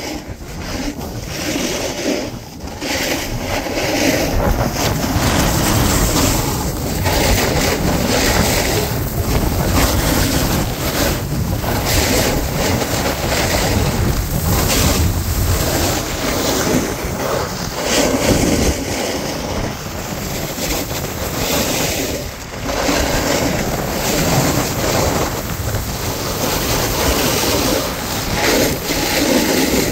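Wind rushing over the phone's microphone as the rider goes downhill, mixed with the hiss and scrape of a snowboard sliding and turning on packed snow. The rushing swells and eases with the speed of the turns.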